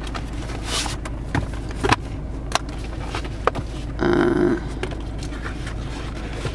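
Handling of a car's owner's manual wallet and its paper booklets: rustling, sliding and small taps of paper and the wallet cover, over a steady low hum. A short louder sound comes about four seconds in.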